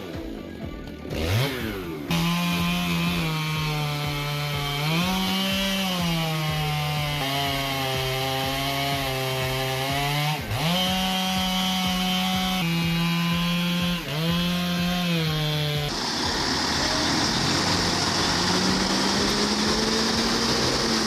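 Large two-stroke chainsaws at full throttle cutting hardwood, the engine note sagging under load and climbing again several times. About sixteen seconds in, the sound changes to a louder high hiss with the engine pitch slowly rising.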